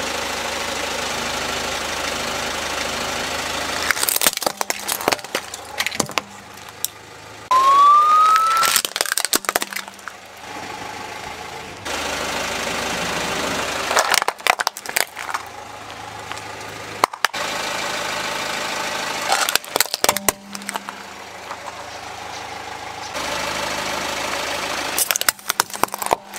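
Car engine running as the car rolls over plastic toys, with bursts of cracking and crunching as each toy breaks under the tyre, several times over. About eight seconds in there is one short rising squeal.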